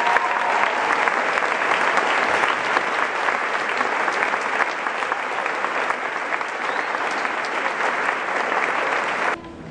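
Audience applauding: dense, steady clapping from a large crowd that cuts off suddenly near the end.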